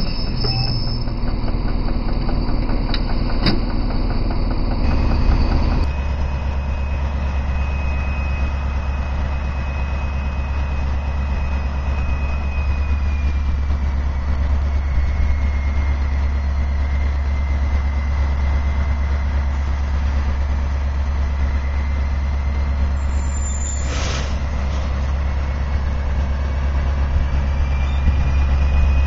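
SNCF BB 67300-class diesel locomotive idling with a steady deep hum. A brief sharp sound comes a little after the middle, and the engine grows louder near the end as the locomotive starts to pull its train away.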